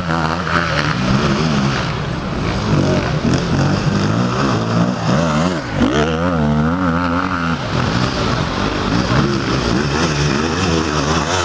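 Enduro motorcycle engine revving hard in deep mud, its pitch rising and falling again and again as the throttle is worked, the bike under heavy load.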